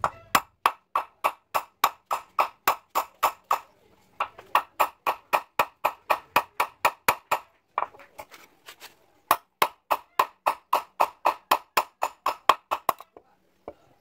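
Hand hammer striking a rusty sickle blade offcut on a small steel anvil block: quick, even metal-on-metal blows with a ringing ping, about four a second. The blows come in runs with two short pauses, lighter taps in the second, and stop about a second before the end.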